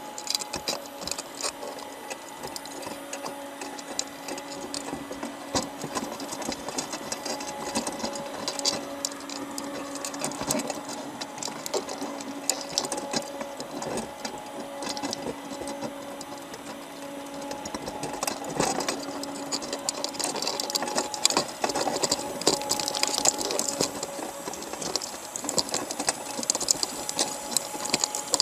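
Underwater, crabs crowding a wire trap make a dense, rapid, irregular clicking and scraping as their shells and legs knock against each other and the mesh, growing busier in the second half, over a faint steady hum.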